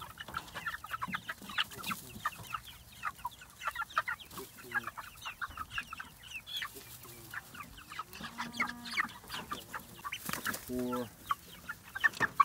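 A flock of young Freedom Ranger meat chicks peeping constantly, many short high cheeps overlapping.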